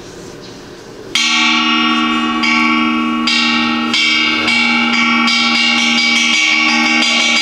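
Bell tones struck one after another, starting suddenly about a second in, each ringing on and overlapping the ones before.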